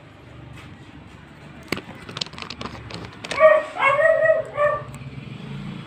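Faint low hum from a Bluetooth audio player module through its speaker, reduced but not fully cured by an added diode and resistor filter. A quick series of clicks comes about two seconds in, then a few short pitched cries, the loudest sound, in the middle.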